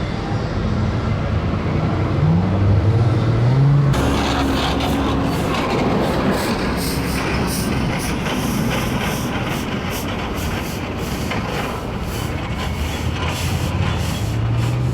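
Road traffic: a vehicle engine rising in pitch as it accelerates, then from about four seconds in a louder steady rush of passing traffic with rapid crackling.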